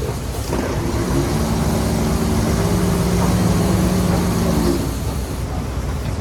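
Heavy construction machine's diesel engine running, working at a steady pitch. Its tone fades about three-quarters of the way through, leaving a steady low rumble.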